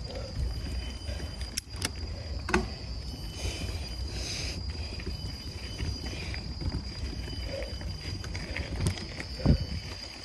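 Mountain bike being ridden over a dirt trail: a steady low rumble with a few sharp knocks as the bike goes over bumps, the loudest about nine and a half seconds in. A steady high-pitched tone runs underneath.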